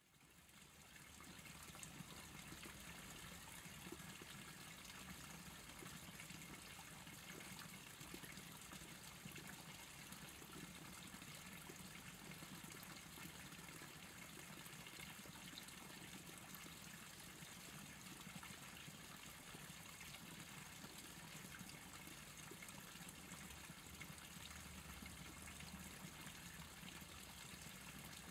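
Faint, steady outdoor ambience of a streamside woodland: an even hiss with a low hum under it and no distinct events, fading in over the first second.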